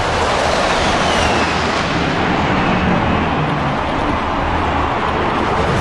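Formation of military fighter jets flying low overhead: a loud, steady jet roar with a deep rumble underneath.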